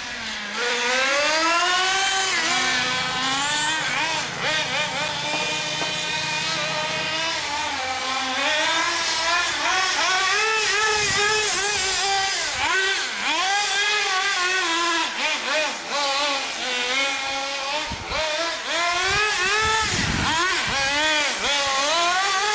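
Several HPI MT2 nitro RC cars running laps, their small glow-fuel engines high-pitched and revving up and down constantly as they accelerate, lift off and pass by.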